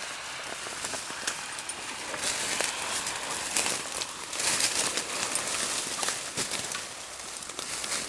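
Leafy branches swishing and twigs snapping and crackling as people push through a dense thicket, with scattered sharp clicks throughout and a louder rush of rustling about four to five seconds in.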